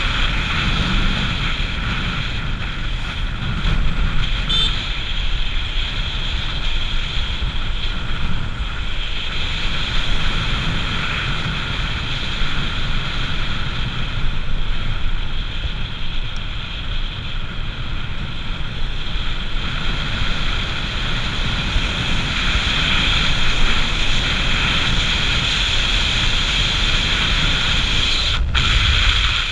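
Wind rushing over the microphone of a camera on a moving motorcycle, with the bike's engine and road noise running underneath at a steady cruising speed.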